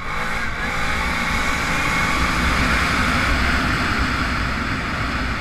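Arctic Cat Big Bore 1000XT engine accelerating, its pitch rising over the first second, then running hard at speed under a steady rush of wind noise on the microphone.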